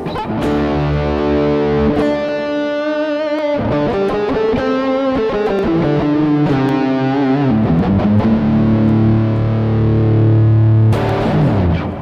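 Electric guitar played through a Harley Benton American TrueTone overdrive and amp-sim pedal on a saturated lead tone. Sustained distorted lead notes with bends and vibrato ring out with reverb, then stop about a second before the end and decay.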